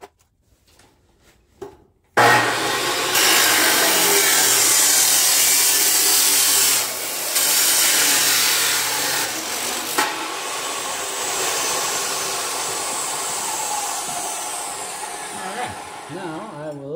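Makita abrasive chop saw starting up about two seconds in and cutting through 2.5-inch exhaust tubing, a loud steady grinding. It eases after about ten seconds and tapers off until it stops just before the end.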